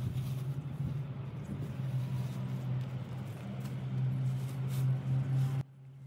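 A motor or engine running steadily with a low, even hum. Near the end the wider noise around it cuts off sharply while the hum carries on more quietly.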